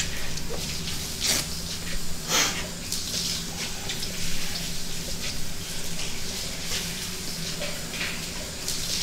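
Shower running steadily, with occasional short knocks and rustles.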